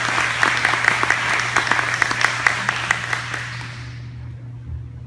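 Audience applauding a speaker, many hands clapping together, dying away about four seconds in. A steady low hum runs underneath.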